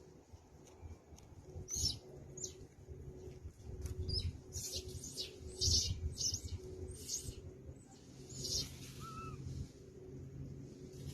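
Birds chirping in short, high calls, thickest in the middle of the stretch, over a low steady rumble.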